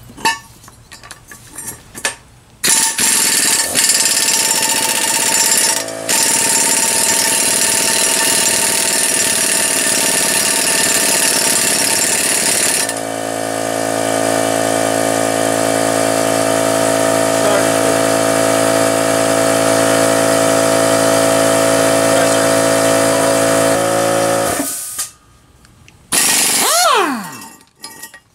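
An impact wrench hammers for about ten seconds on a seized EGR tube fitting, then runs steadily without hammering for about twelve seconds. After a short pause it gives one brief burst that winds down in pitch.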